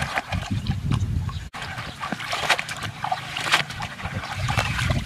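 Water splashing irregularly as hands swish a bunch of leaves through shallow stream water to wash them, with a brief break about a second and a half in.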